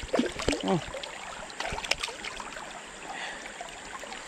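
Shallow river water flowing and lapping around wading legs, with a few short splashes in the first two seconds as a lampam (river barb) is held at the water's surface.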